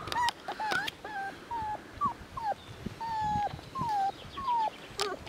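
Border Collie puppy whimpering over and over, wanting cuddles. It gives about ten short, high whines, most of them falling in pitch, with one longer whine in the middle.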